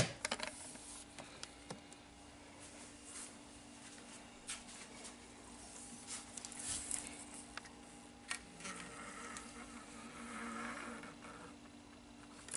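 A wooden cabinet lid on a Teletype Wheatstone tape machine shuts with a sharp knock. Then scattered light clicks and rustling from handling the machine and its punched paper tape follow, over a low steady hum.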